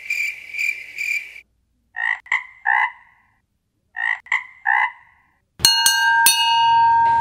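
A cricket chirps in even pulses, about three a second, then a frog croaks in two runs of three. Near the end a hanging flat metal gong used as a school bell is struck three times in quick succession and rings on.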